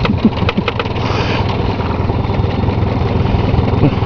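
Small boat outboard motor running steadily at low speed, with a few sharp clicks in the first second.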